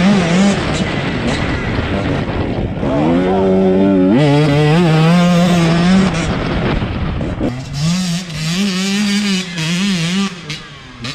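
Husqvarna two-stroke dirt bike engine revving up and down under throttle, its pitch rising and falling. It is loudest in the first six seconds or so and softer after that.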